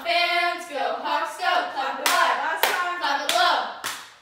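Several girls' voices chanting a cheer together, punctuated by a few sharp hand claps in the second half.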